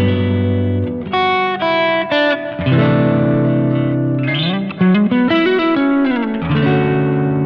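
Electric guitar played with a clean tone through a Fender Tone Master Pro modeler: ringing chords and single notes, with a slide up in pitch about halfway through.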